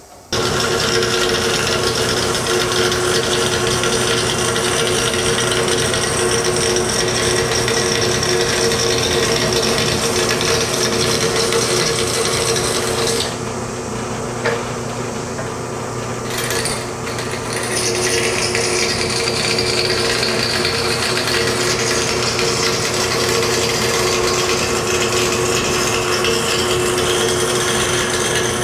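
Bandsaw cutting through flat steel bar stock: a steady hiss with a constant hum from the running saw, starting abruptly and dipping quieter for a few seconds around the middle.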